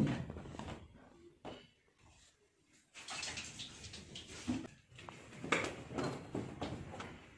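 A thump at the start, then bursts of scuffling and rustling from about three seconds in: two Persian cats chasing each other across a tiled floor and onto a bed, their paws scrabbling and the bedding rustling.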